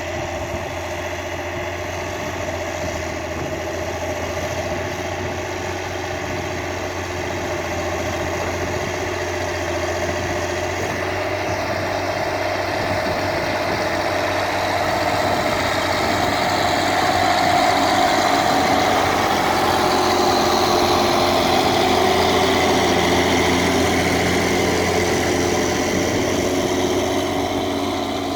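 Case 1694 tractor's diesel engine running steadily under load while pulling a four-furrow plough. It grows louder through the middle and eases off near the end.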